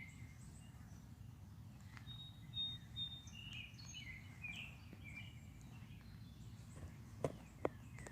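Birds singing and chirping after rain, short whistles and chirps scattered through, over a steady low background rumble. Two sharp clicks sound close together near the end.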